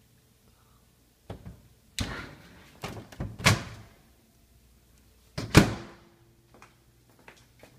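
Kitchen doors, the oven door among them, being handled and shut: a series of clunks and thuds, the loudest a slam about five and a half seconds in.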